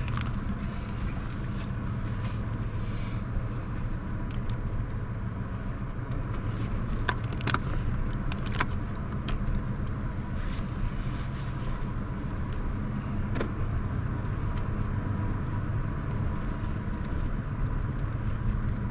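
Steady road and engine noise inside a moving car, with scattered small clicks and rattles.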